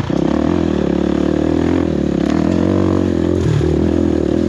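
Enduro dirt bike engine running loud and fairly steady at part throttle, its pitch rising and falling only slightly as the rider picks his way along the trail.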